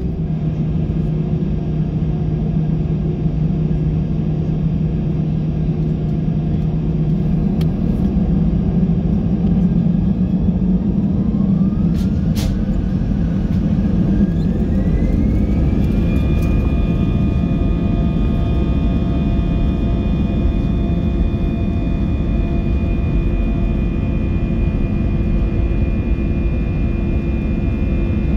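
Airbus A320-200 cabin noise over the wing: the jet engines hum steadily at low power, then about ten seconds in they spool up towards take-off thrust, a whine rising in pitch for about five seconds before holding steady under a continuous rumble. A single sharp click comes about twelve seconds in.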